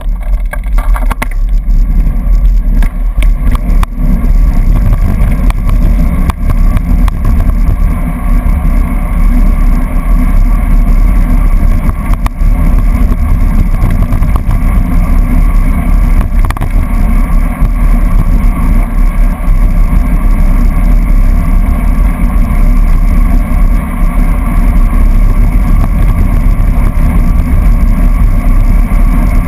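Wind buffeting a bike-mounted action camera's microphone while riding: a loud, steady low rumble.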